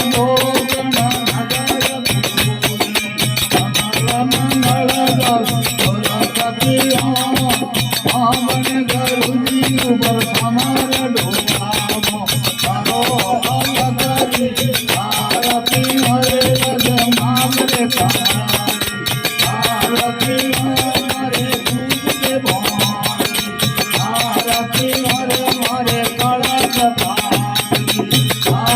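Indian folk devotional aarti music: a melody over fast, steady jingling rattle percussion and a steady bass.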